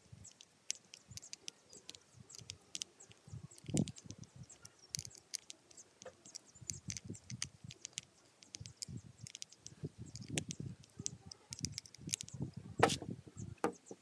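Faint, irregular small metallic clicks and ticks of a screwdriver working the cover screws of a chainsaw carburetor, with soft handling bumps and one sharper click near the end.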